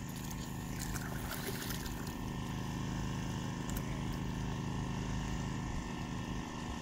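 A small engine running steadily, with a few faint clicks and knocks about a second in.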